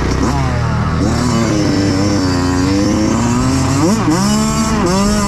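Kawasaki KX85 two-stroke dirt bike engine running hard under way, its pitch sagging and climbing with the throttle. The pitch dips sharply and climbs again about four seconds in, and once more near the end.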